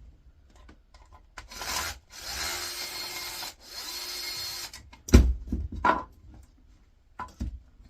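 A screw being undone from the mixer's housing with a screwdriver: two stretches of steady grinding, each about a second long, then a sharp knock about five seconds in and a few clicks as the part is handled.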